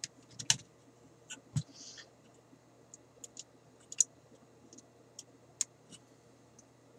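Small irregular clicks and taps of wires and metal radio parts being handled while leads are pushed onto solder tabs, about a dozen in all, with a faint steady low hum underneath.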